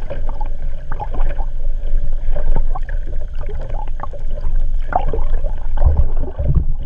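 Water rushing and gurgling around a camera mounted underwater on a kayak's hull: a steady low rumble with scattered bubbly pops, and a couple of heavier low surges near the end.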